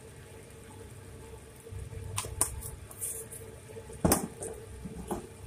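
Spice jars handled and shaken over a frying pan: a few light clicks and knocks, the loudest about four seconds in, over a low steady background.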